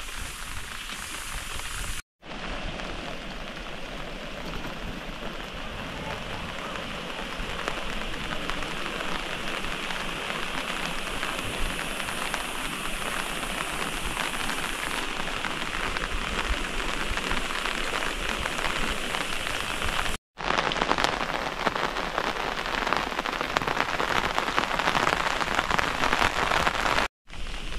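Steady rain falling, a dense even patter of drops that grows louder in the last third. The sound breaks off for an instant three times.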